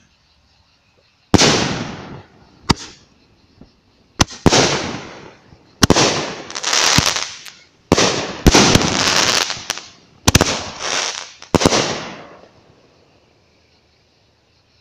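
Eight firework artillery shells tied together going off in quick succession: a string of sharp bangs over about eleven seconds, each trailing off in a rushing hiss as the shells burst, ending about twelve seconds in.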